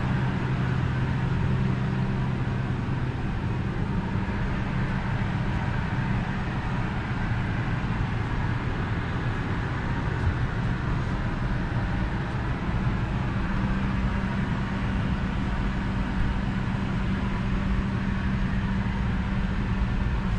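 Steady hum of a Boeing 757-200's cabin air-conditioning and ventilation: a few low droning tones under an even rush of air.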